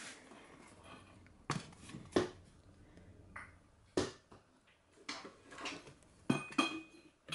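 Cookware being handled: a few sharp clicks and knocks of a stainless steel pot and kitchen utensils, with a short metallic clink that rings briefly near the end.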